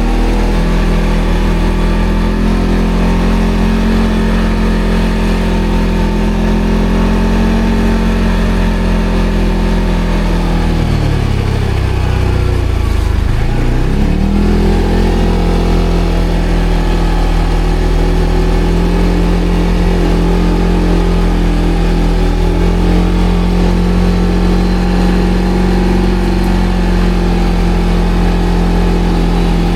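ATV engine running at steady revs. About eleven seconds in the revs drop sharply, then pick back up a few seconds later and hold steady again.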